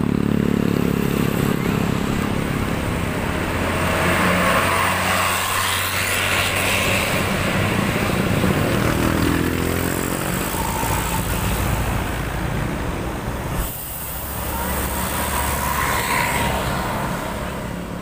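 Tour coaches and motorcycles passing on a road: a steady low engine rumble over traffic noise, with a brief break in the sound about three-quarters of the way through.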